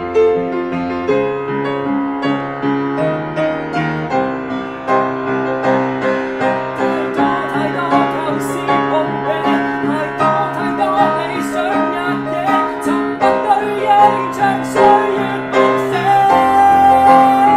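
Upright piano playing chords, with a man's voice singing over it from about halfway through and holding one long note near the end.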